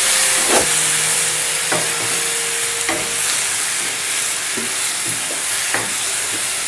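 Karela (bitter gourd) and onion masala sizzling in a non-stick wok, with a little water just added. A wooden spatula stirs and scrapes through it, making a short knock against the pan about once a second.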